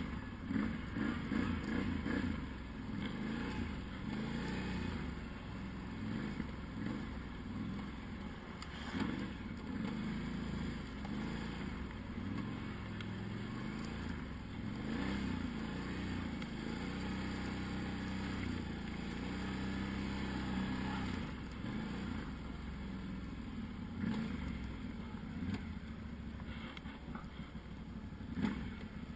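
Quad bike engine running under load, its pitch rising and falling as the throttle is opened and eased off. A single sharp knock near the end.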